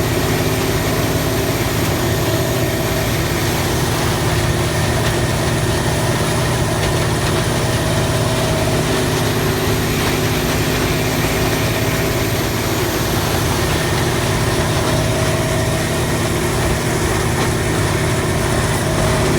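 The diesel engine of a Morbark 4600XL wood grinder running steadily at an even, unchanging speed, with a deep hum and no grinding impacts.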